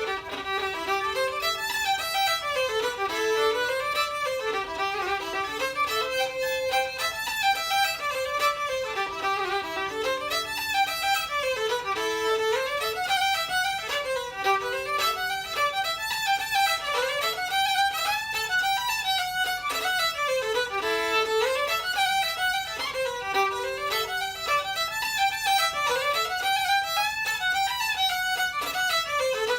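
Fiddle and tin whistle playing a fast Irish traditional dance tune together in unison, a steady stream of quick notes.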